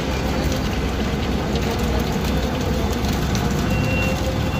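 Concrete pump and truck mixer running steadily, a continuous mechanical rumble with a steady hum, as ready-mix concrete pours from the mixer's chute into the pump's grated hopper and the pump draws it in.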